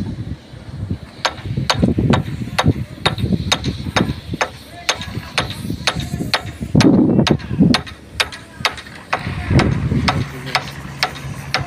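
Hammer striking steel over and over: sharp clanks, a few a second at an uneven pace, over low rumbling. A low steady hum comes in near the end.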